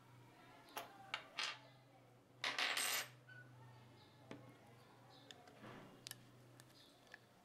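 Stanley heavy-duty hand riveter being handled, its steel handles, jaws and nose piece clicking and clinking: a few sharp clicks, then a longer metallic rattle about two and a half seconds in, then scattered lighter clicks.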